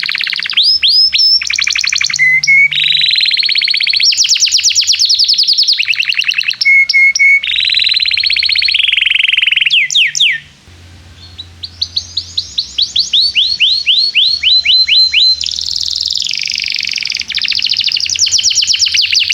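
Domestic canary singing a long, loud song of fast trills made of rapidly repeated notes and quick upward and downward sweeps, with a short break about halfway through.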